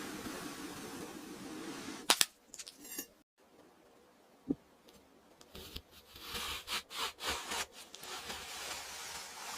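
Kinetic sand being cut and handled. A sharp click comes about two seconds in, followed by a brief crackle. A run of crisp crunchy clicks and scrapes fills the second half, over a faint hiss.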